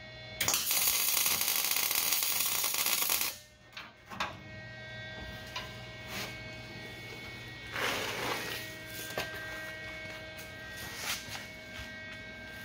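Lincoln MIG welder laying a weld on a steel body mount: a loud, steady crackling sizzle for about three seconds, then short bursts of arc crackle from tack welds and scattered clicks over a low hum.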